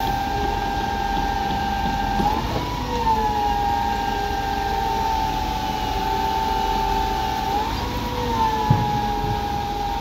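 Trailer-mounted concrete pump running while being fed: a steady high whine over a low rumble, which rises in pitch twice, about five seconds apart, and each time slides slowly back down.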